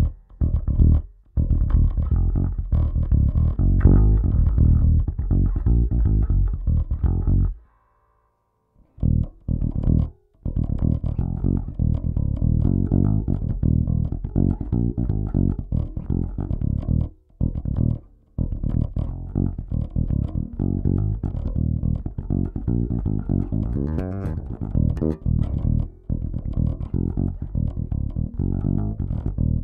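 Electric bass played through the Laney Digbeth bass preamp's clean FET channel: a run of plucked bass notes and lines, stopping briefly a few times.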